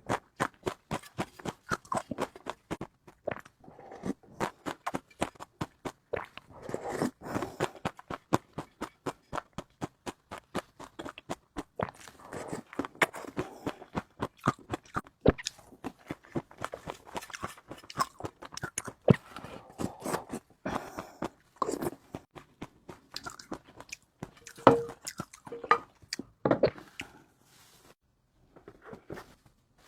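Close-miked chewing of crunchy food, with a quick run of sharp crunching clicks, several a second. It eases off into a short lull near the end.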